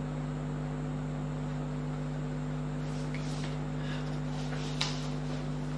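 Steady low electrical hum, with a few faint soft rustling noises in the second half and one sharp click a little under five seconds in.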